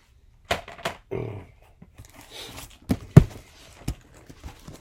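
Hard plastic graded-comic slabs being handled and set down on a table: several short knocks and taps, the loudest about three seconds in, with a little rustling in between.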